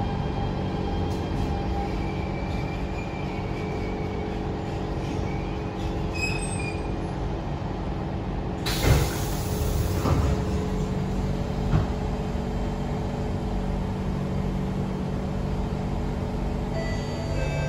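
Interior of a 1995 Siemens C651 MRT train coming to a halt at a platform. A steady hum from the train's equipment runs under a faint high squeal as it slows, then a loud hiss of air about nine seconds in, and two sharp knocks as the doors open.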